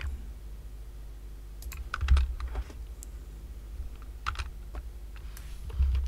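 Computer keyboard keys and mouse buttons clicking: scattered separate clicks, grouped about two seconds in and again past four seconds, with a dull low thump about two seconds in and another near the end.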